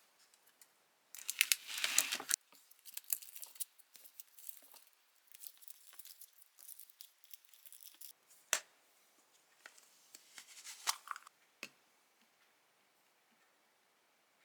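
Something being torn and crinkled by hand: a loud tear about a second in, then scattered rustling and a few sharp ticks, ending about twelve seconds in.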